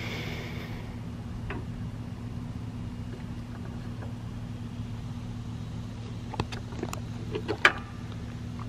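A vehicle engine idling steadily with a low hum. Over it come a few sharp plastic clicks about six to eight seconds in, the loudest near the end, as the headlight bulb sockets behind the radiator support are handled.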